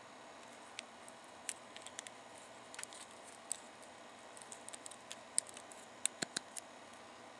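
Small plastic clicks and ticks of a plastic Gokaiger Ranger Key toy being handled and folded by fingers, its jointed parts snapping and rubbing. Irregular sharp clicks, with a quick run of louder ones about six seconds in.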